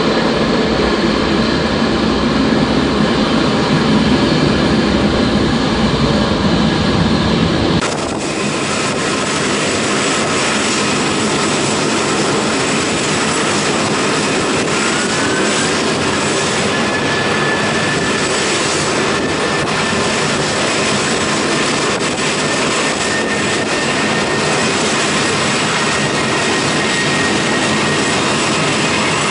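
Air France Airbus A380's four Engine Alliance GP7200 jet engines running at taxi power as it rolls past close by, a steady loud rumble and hiss. About eight seconds in the low rumble drops away abruptly. After that a thin high whine rises in pitch and then holds.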